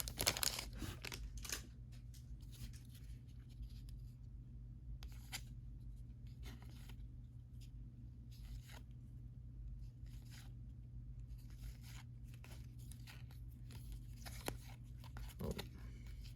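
Faint handling of baseball trading cards and their pack wrappers: short tearing and rustling sounds, with cards slid and flicked by hand, over a steady low hum.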